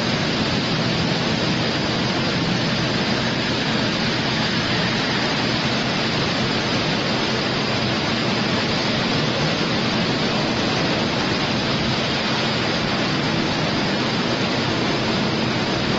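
Steady industrial noise of a steel mill hall: an even, unbroken hiss with a faint low hum beneath it and no distinct clanks or knocks.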